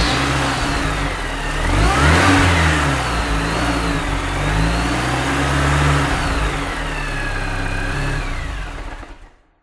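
Car engine revving up and down several times, then fading out near the end.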